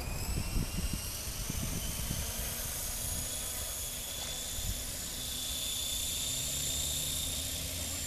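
Align T-Rex radio-controlled helicopter's motor and rotor spooling up on the ground: a high whine that rises slowly in pitch over the first few seconds, then holds steady.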